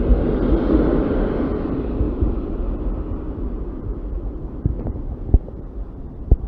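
Passenger coaches of a departing intercity train rolling past on the rails, a steady rumble that fades as the train pulls away. A few sharp clicks come in the second half.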